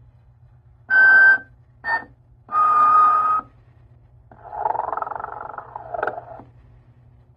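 Snoring Santa novelty figure playing its recorded snore: whistling puffs, a short blip and a longer whistle about a second long, followed by a long rasping snore.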